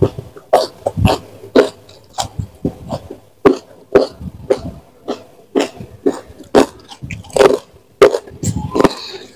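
Close-miked chewing with wet mouth smacks, coming about twice a second in a steady rhythm, as a person eats a meal of rice, fried fish and sambal by hand.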